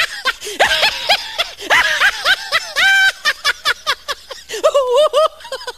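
Human laughter dubbed over the footage of the lion: a long run of high-pitched giggling and snickering in quick repeated bursts, turning into shorter chuckles in the second half.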